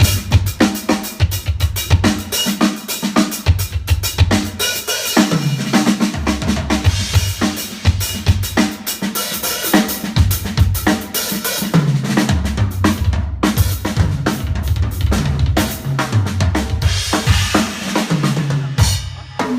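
Drum kit played solo: fast, dense patterns on bass drum, snare and cymbals, broken several times by fills that step downward in pitch across the toms.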